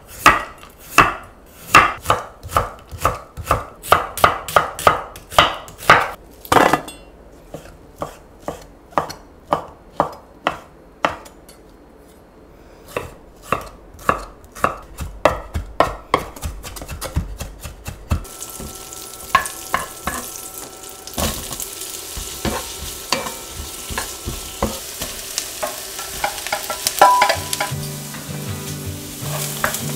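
Chef's knife slicing carrot on a wooden cutting board in steady chops, about two a second, then quicker chopping as shrimp is minced. From a little past the middle, vegetables sizzle as they are stir-fried in a pan, with light clicks and scrapes of stirring.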